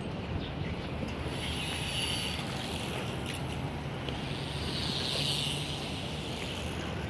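Steady outdoor ambience with a low wind rumble on the microphone, and two short hissing sounds about one and a half and five seconds in.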